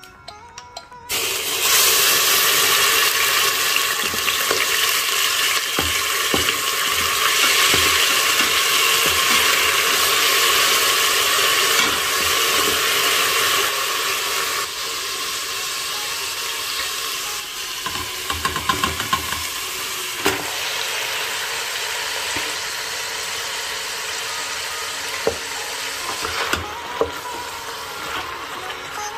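Hot ghee sizzling loudly in a stainless steel pressure-cooker pot, starting suddenly about a second in as an ingredient hits the fat, with a wooden spoon stirring and now and then knocking on the pot. The sizzle eases about halfway and again near the end, when raw mutton pieces are in the pot.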